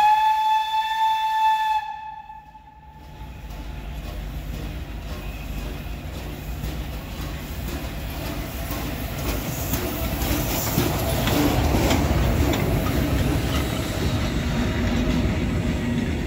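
Pt47 steam locomotive's steam whistle blows one steady blast of about two seconds. The locomotive then runs up and passes close with a growing rumble and wheel noise on the rails, loudest a little past halfway, then easing off.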